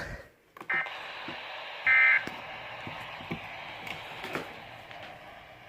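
Weather radio speaker hissing with broadcast static and sounding two short electronic tone bursts, the louder one about two seconds in, as the radio goes off with an alert.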